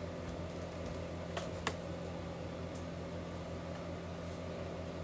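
Steady electric hum of an industrial sewing machine's motor running idle, with two light clicks about a second and a half in as the fabric is handled at the presser foot.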